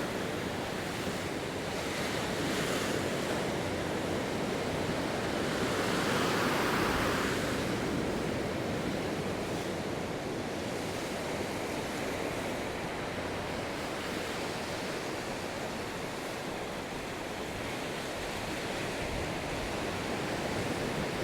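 Ocean surf breaking and washing up a beach, with wind buffeting the microphone; the wash swells a little louder about six seconds in.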